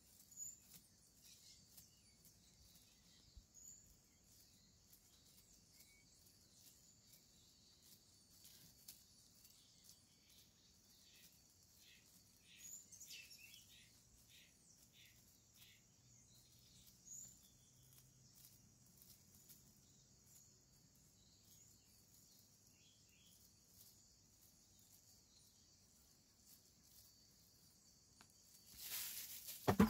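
Faint outdoor ambience with a steady high insect drone, and a few soft scratching strokes as a plastic uncapping scratcher lifts wax cappings off honeycomb. A louder rustle comes near the end.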